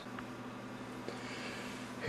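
Quiet room tone: a low steady hum over a faint hiss.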